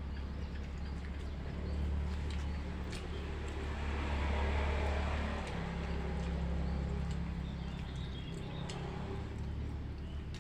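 A motor vehicle's engine running nearby: a steady low hum that grows louder around the middle and eases off again. Small clicks sound over it.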